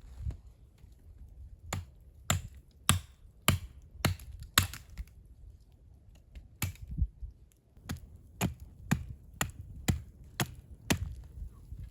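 A run of sharp knocks, about two a second, pausing briefly near the middle and then going on at the same pace.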